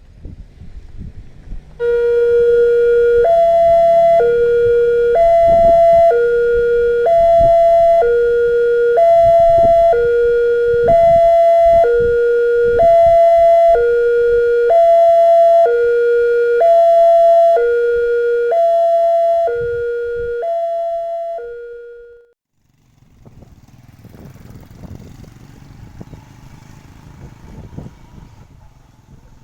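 Railway level-crossing siren sounding a two-tone alarm, a lower and a higher tone alternating about once a second. It starts about two seconds in and stops a few seconds before the end, with low rumbling noise beneath it.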